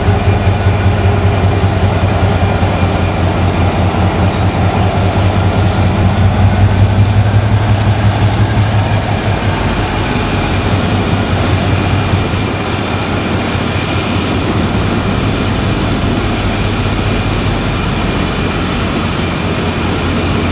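GM diesel shunting locomotive, an NIR 111 Class, running with a steady low engine throb as it moves along the track, with a high thin whine over it. The engine note falls away a little after about twelve seconds as the locomotive draws off.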